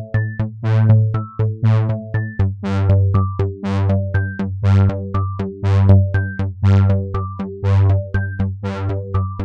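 Software synthesizer playing a fast repeating pattern of short plucked notes over a held low bass note, which shifts pitch a couple of seconds in.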